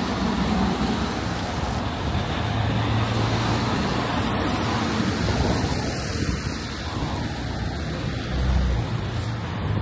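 Steady road traffic noise, with some wind on the microphone.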